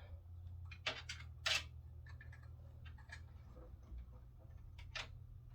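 A few sharp clicks and taps from hands working on a case fan and its parts inside a desktop PC case, the loudest about a second and a half in, over a steady low hum.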